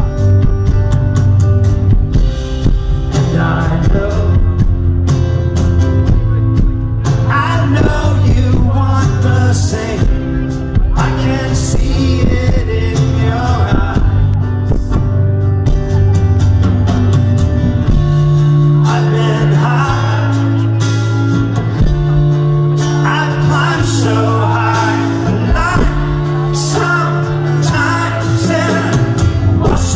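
Live rock band playing a slow song: a male lead vocal sings over held bass notes that change every couple of seconds.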